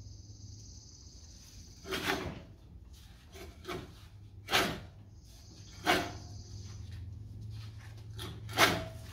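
Silent Scott's Deluxe reel mower blades turned by hand past the bedknife, snipping a sheet of paper four times in a sharpness test after backlapping. The mower is cutting pretty well, but not yet as cleanly as wanted.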